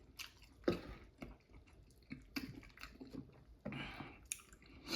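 Close-miked chewing and mouth sounds: soft wet smacks and clicks of someone eating, with a few louder squishy bites.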